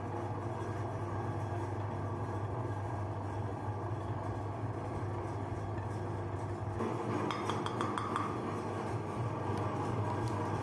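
Meat grinder motor running with a steady hum. From about seven seconds in, a short run of light clinks and rattles sounds over it.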